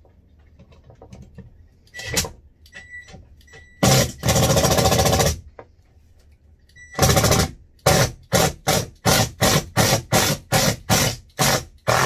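Power drill driving a screw in to tighten a cabinet bar pull. It runs briefly, then for about a second and a half, then goes in a string of short quick pulses, about three a second, for the last four seconds. Loud.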